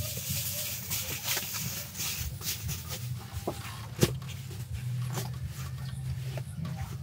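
Crinkling of a reflective foil mat and rustling of a sleeping bag being spread out on a wooden bunk, with one sharp knock about four seconds in.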